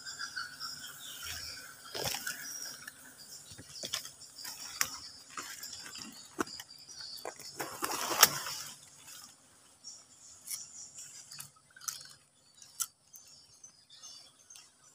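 Irregular snaps, crackles and rustles of twigs and leaves handled close by, the loudest about eight seconds in, thinning out toward the end.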